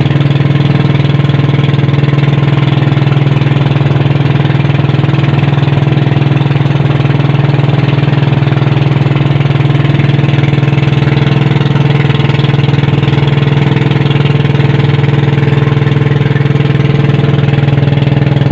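Engine of a motorized outrigger boat running steadily under way, a loud, even hum with no change in speed.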